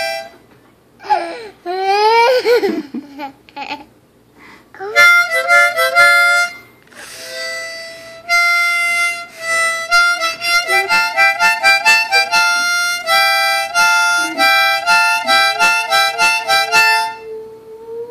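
Harmonica played in quick repeated blown chords, with a dog howling along: a wavering, sliding howl about a second in, and a long steady held howl starting under the last chords near the end.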